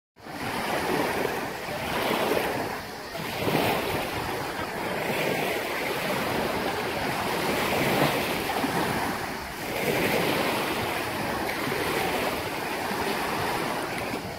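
Small waves lapping and washing up a sandy shore, the wash swelling and falling back every couple of seconds, with wind buffeting the microphone.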